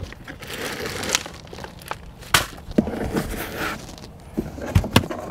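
Plastic zip-top bag and its contents crinkling and rustling as they are pulled out of a car's door pocket, with a few sharp knocks against the door's hard plastic trim, about two seconds in and twice near the end.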